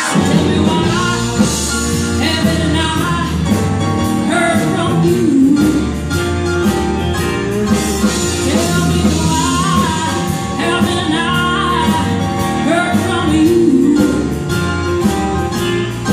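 A woman singing a country song into a microphone, backed by a live band with guitar and drums, amplified through the stage PA.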